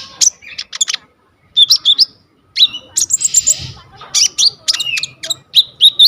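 A konin songbird singing a varied, rapid song of sharp chirps, whistled notes and a rasping buzzy phrase, full of mimicked phrases of other birds. The song breaks off briefly about a second in, then resumes with a buzzy phrase about halfway through.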